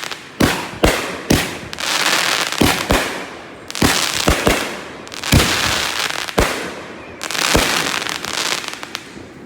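Fireworks going off in quick succession: about a dozen sharp bangs of bursting shells, with dense crackling between them. The crackling dies down near the end.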